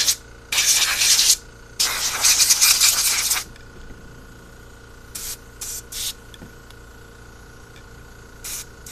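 Compressed air from a blow gun hissing in three long blasts, then several short puffs, blowing out carburetor parts to get them clean.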